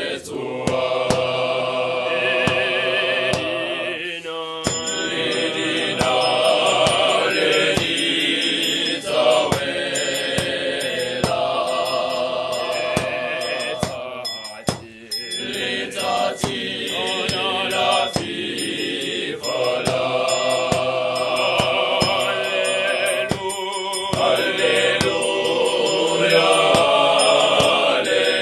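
Male voice choir singing in harmony, in long phrases with brief breaks about four, fifteen and twenty-four seconds in.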